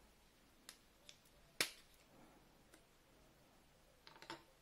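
Plastic adapter clicking off the mount of an AERO Avenger wiper blade as it is pulled free, with one loud sharp snap about a second and a half in after two lighter clicks. Near the end comes a short run of light plastic clicks and taps.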